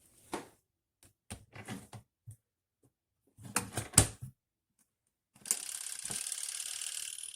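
A portable twin-tub washing machine being handled: a series of clicks and knocks, the sharpest about four seconds in. A steady hiss starts about five and a half seconds in.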